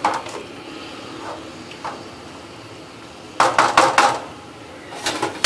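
A spoon stirring chicken and tomatoes in a metal karahi, knocking and scraping against the pan: a few light clicks, then a quick run of loud knocks and scrapes about three and a half seconds in, and a few more near the end.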